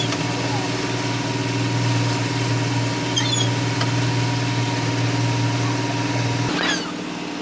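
An engine running steadily with a constant hum, its note dropping suddenly about six and a half seconds in. Short high bird calls sound around the middle and near the end.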